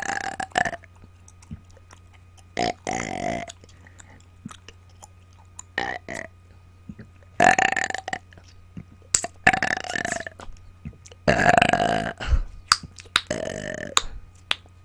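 A woman burping on command, about seven loud burps spaced a second or two apart, with faint short clicks in the gaps. They are forced up without food or drink.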